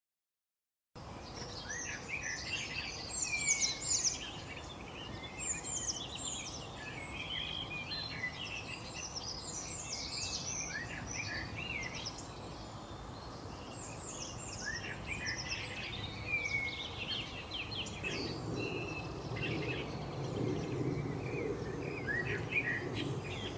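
Wild songbirds chirping and singing in quick, overlapping phrases, starting about a second in, over a steady background hiss; a low rumble joins in near the end.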